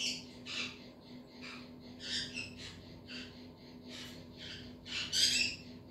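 A mother raccoon and two kits feeding at a metal bowl of cat food: a run of short, raspy sounds about two a second, the loudest near the end.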